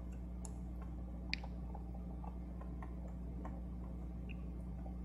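Small Phillips screwdriver working screws into a metal bracket in a laptop's battery bay: faint, irregular metal ticks and clicks, one sharper click about a second in, over a low steady hum.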